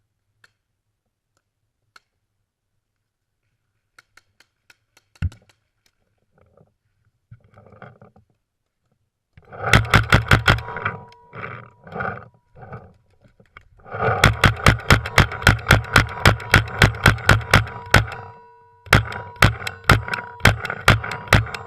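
Airsoft gun firing long full-auto bursts, a rapid even string of sharp shots, about eight a second, over a steady whine, starting about nine seconds in and broken by short pauses. Before that, only a few faint clicks and one knock.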